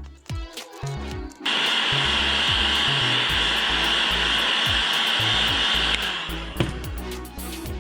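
A handheld hot-air blower switched on about a second and a half in, running steadily with a rushing sound and a high whine, then switched off about six seconds in; it is heating carbon-fibre vinyl wrap to soften it for stretching over a fender. Background music with a beat plays around it.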